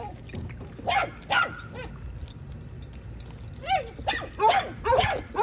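A dog barking: two barks about a second in, then a quick run of five or so barks near the end.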